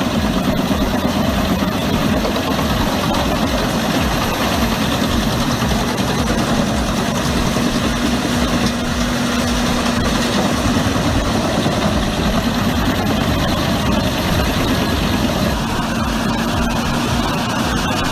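Heavy diesel engine of a large forestry machine running steadily under a constant load, a low steady hum over an even mechanical rumble.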